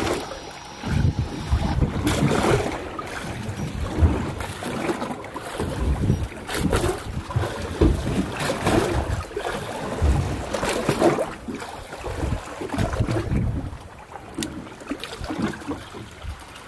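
Wind gusting across the microphone, with choppy water against a boat's hull, in uneven rumbling gusts and a few light knocks.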